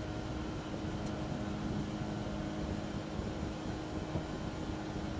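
Steady cockpit noise of an Airbus A330 MRTT tanker aircraft: an even rushing hum with a few faint steady tones.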